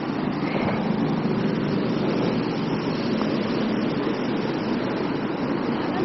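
Steady rushing of the Triberg waterfall's stream cascading over granite boulders.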